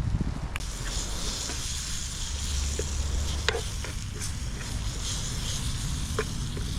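Fish fillets frying in oil in a pan: a steady sizzle that starts about half a second in, with a few light clicks, likely from a utensil against the pan, over a low rumble.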